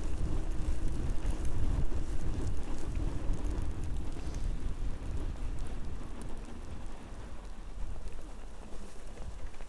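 Wind buffeting the microphone over the rumble of a fatbike's wide tyres rolling through snow, easing off somewhat in the last few seconds.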